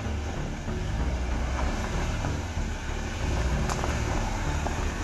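Beijing BJ40 off-roader's engine running in four-wheel drive, a steady low drone, with a single sharp click about three-quarters of the way through.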